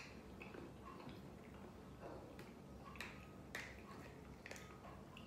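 Quiet eating sounds at close range: soft chewing and a few small, sharp mouth clicks.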